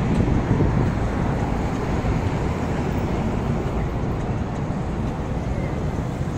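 Steady street traffic noise from a busy city road.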